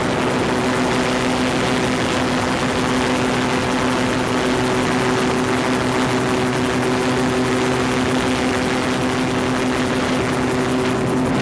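Yamaha RX1 Genesis 1000 cc four-stroke, four-cylinder snowmobile engine driving the propeller of a gyrocopter in steady cruise flight: an even drone at constant speed over a rush of air in the open cockpit.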